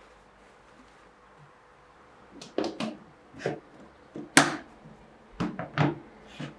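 Household objects being handled in a small room: after a quiet start, a run of short knocks, clacks and light scrapes, the loudest a sharp knock about four seconds in.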